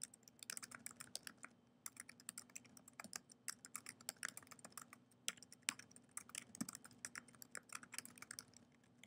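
Typing on a computer keyboard: a quick, irregular run of faint key clicks as a sentence is typed, stopping shortly before the end.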